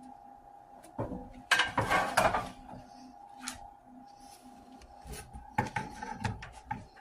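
Baking pan of fish and shrimp being handled, clattering and knocking in a few short bursts: about a second in, around two seconds, and again near six seconds.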